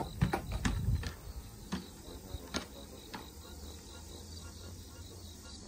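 Aluminium ladder knocking and clanking under a person's feet and hands as she climbs down it: a quick cluster of sharp knocks in the first second, then a few single knocks spaced out. Insects chirr steadily in the background.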